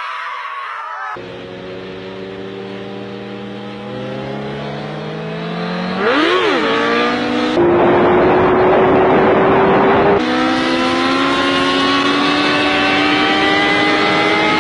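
Sportbike engine accelerating hard, its pitch climbing steadily, dipping sharply and rising again about six seconds in as it shifts up, then climbing once more through the next gear. A loud rush of wind noise covers the engine for a few seconds in the middle.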